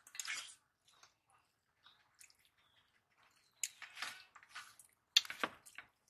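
Eating rice by hand from steel plates: wet squishing of fingers kneading rice with curry, with chewing, in short spells near the start and again about four and five seconds in.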